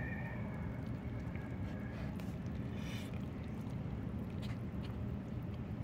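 Chopsticks stirring and mixing sauce-coated instant cup noodles, with a few soft clicks and squishes over a steady low hum.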